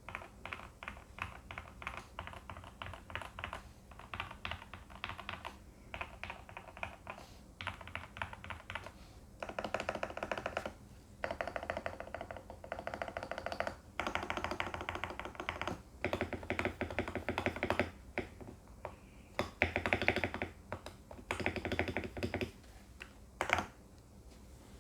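Typing on a VL84 mechanical keyboard with factory-lubed Gateron Pro Yellow linear switches, PBT keycaps and foam-dampened case and plate. The keystrokes come in quick runs of a second or two, separated by short pauses, and the runs grow denser in the second half, ending with a single keystroke near the end.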